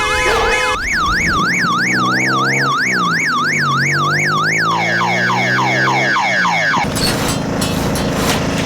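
Electronic siren or alarm sounding loudly and cycling through patterns: a fast up-and-down yelp of about three sweeps a second, then a run of quick falling sweeps, then, about seven seconds in, a harsh rasping blare with rapid pulses.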